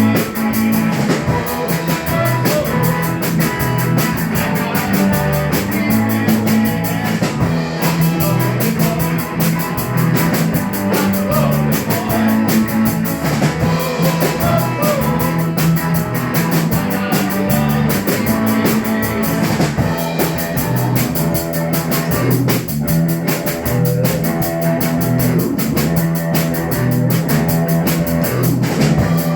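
Rock band playing, with drum kit, guitar and bass carrying a steady driving beat.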